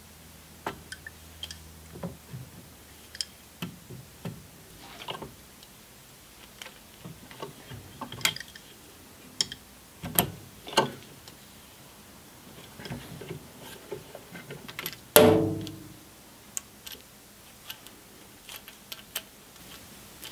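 Adjustable wrench working an aluminium AN hose fitting held in a vise while a braided oil line is assembled: scattered small metal clicks, ticks and scrapes. About three-quarters of the way through comes one much louder metal clank that rings briefly.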